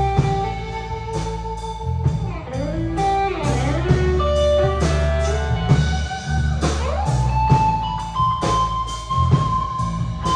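Instrumental music: a lead guitar playing long held notes with pitch bends, over bass and a drum kit keeping a steady beat.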